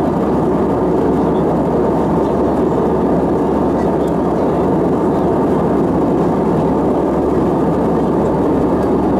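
Steady cabin noise of an Airbus A320 airliner in cruise: an even rush of airflow and jet-engine noise that does not change.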